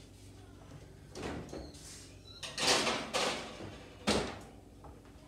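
Kitchen oven door opened and shut as a foil-lined baking sheet goes in: a clunk about a second in, a longer scraping sound around the middle, and a sharp bang of the door closing just after four seconds.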